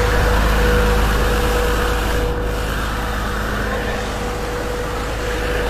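Heavy truck engine running steadily close by: a low rumble with a thin steady whine over it.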